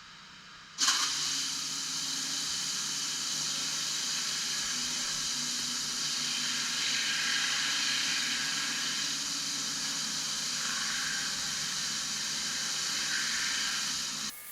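Pressure washer spraying water, switched on suddenly about a second in, then a steady loud hiss of spray with a low hum underneath, cutting off abruptly near the end.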